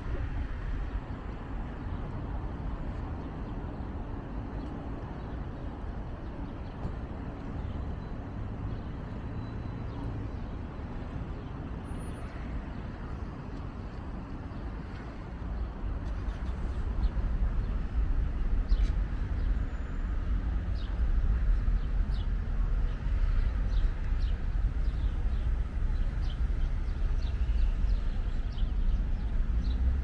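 Steady low rumble of city road traffic, getting louder about halfway through, with a few faint short high chirps later on.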